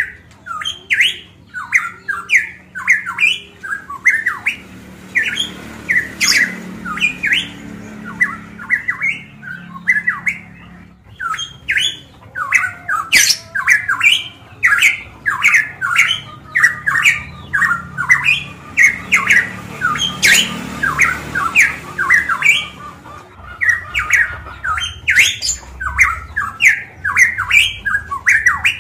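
Caged pitohui (cucak emas Papua) singing loudly: a fast, almost unbroken string of short whistled notes, several to the second.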